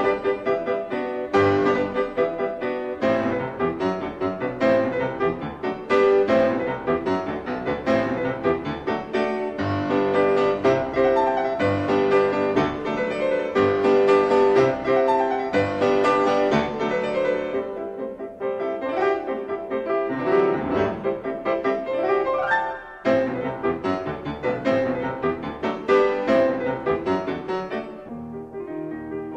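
Background piano music in a classical style, notes struck at a steady flowing pace, with a brief break about 23 seconds in.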